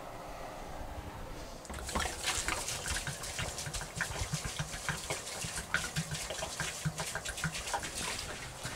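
Water glugging and splashing out of a 5-gallon plastic water jug being poured into the condenser pump's water reservoir barrel, starting about two seconds in and going on irregularly.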